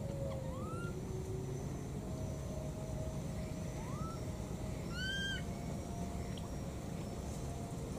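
Baby monkey calling for its mother: a few short, thin rising calls, then a stronger arched call about five seconds in, over a steady low background noise.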